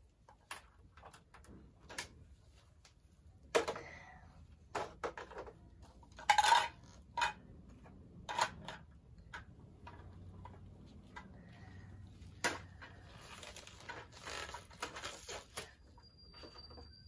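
Plastic toy cookware, utensils and play food clattering and knocking as they are picked up and set down on a toy kitchen stove. Irregular clicks and knocks, the loudest about six seconds in.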